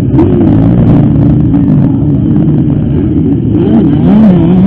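Several motocross bike engines revving up and down together as they race, their pitches rising and falling.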